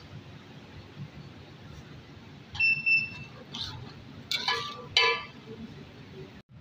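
Metal ladle clinking and scraping against a large aluminium cooking pot while stirring a thick curry. There is one ringing clink about two and a half seconds in, then a few short scrapes and knocks between three and a half and five seconds.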